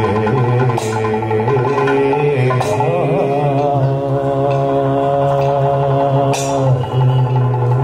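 Kathakali vocal music: male singers chanting a melodic line over a steady drone. The voice holds one long note through the middle, and a few sharp percussive strikes mark the beat.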